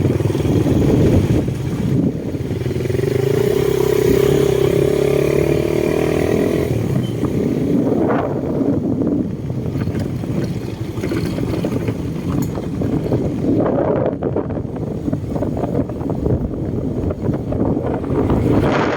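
Heavy wind rumble on the microphone over a running motor engine; a steady engine note stands out for a few seconds near the start, then fades back into the rumble.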